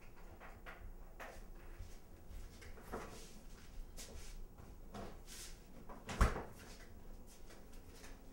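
Refrigerator door opened and shut, closing with a dull thud about six seconds in, amid light knocks and clicks.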